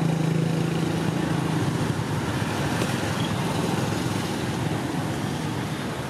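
Motor vehicle engine running with a steady low hum that fades out about two seconds in, leaving steady traffic noise.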